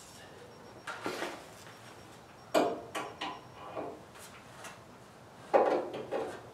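Aluminum grille clattering and knocking as it is lifted and fitted into the front of a 1963 Chevy pickup, with two sharp knocks, about two and a half seconds in and near the end, among lighter handling clatter.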